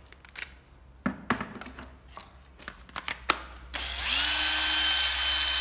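Hitachi DS 13DV2 12-volt cordless drill driver: a few clicks and knocks of the tool being handled, then about four seconds in the motor spins up and runs steadily, free-running with no bit in the chuck.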